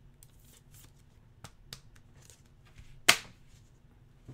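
Trading cards and a clear plastic card holder being handled: faint rustles and light ticks, with one sharp click about three seconds in.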